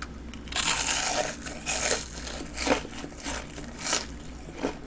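Crisp crunching of a breaded deep-fried king prawn being bitten and chewed: a long crunch about half a second in, then three shorter, sharper crunches as the chewing goes on.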